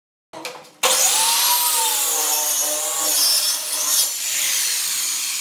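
Handheld circular saw cutting through a laminated board along a clamped straightedge guide, its motor whine dipping and recovering in pitch as the blade takes the load. The cut starts abruptly about a second in, after a brief fainter sound.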